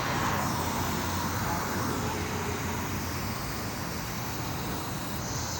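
Air compressor running with a steady, even mechanical noise.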